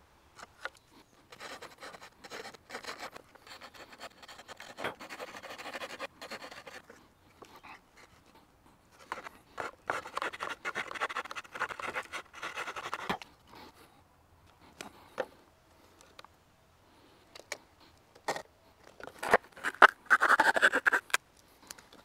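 Victorinox Huntsman pocket knife scraping and carving wood in three bouts, with a few sharp knocks between them; the loudest scraping comes near the end.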